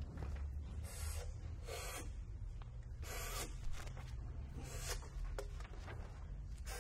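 Short rustles of paper and handling noise, five or six of them, over the steady low hum of a concert hall: sheet music and instruments being handled, with no music playing.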